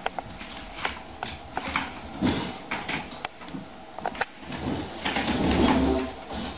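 Scattered light clicks and knocks of stainless-steel food bowls and paws on a wooden floor, with a louder, murkier stretch for about a second around five seconds in.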